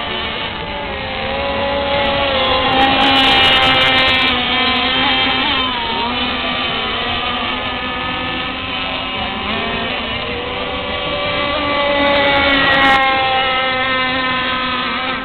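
Several small RC racing powerboat engines whining at high revs as the mono-hull boats race, each at its own pitch. The sound swells louder about three seconds in and again about twelve seconds in as boats pass close.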